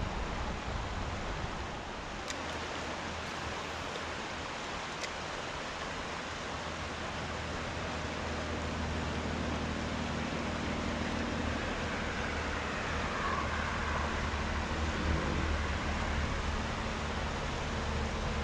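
Steady rushing noise of flowing river water and wind on the microphone, with a few light clicks in the first few seconds and a low steady hum coming in about halfway through.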